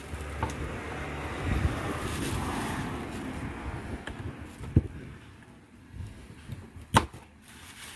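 Two sharp knocks about two seconds apart, a large knife chopping through king fish (seer fish) steaks and striking the cutting table, the second knock the louder. Underneath is a steady rumble, heaviest in the first half.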